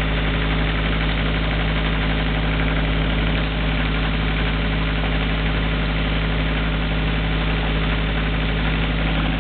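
Mini excavator's diesel engine running steadily at idle, an even, unchanging drone.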